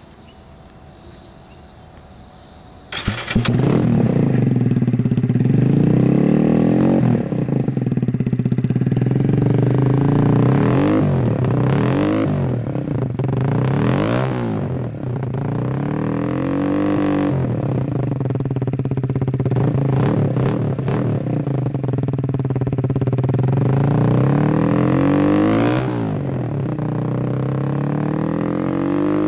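Kawasaki Z125 Pro's 125 cc single-cylinder engine starting about three seconds in and running through a Brock's Alienhead stainless full exhaust, revved up and back down about half a dozen times between stretches of idle.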